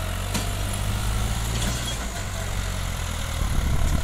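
New Holland 3600 TX tractor's three-cylinder diesel engine running steadily while pulling a rear-mounted implement; its note shifts about two seconds in and grows louder near the end as the tractor comes closer.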